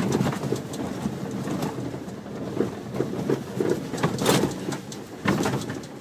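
Cab noise of a Renault Trucks D 2M driving slowly: the diesel engine runs with a low pulsing drone, and scattered knocks and rattles come through the cab, the loudest a little past four seconds in.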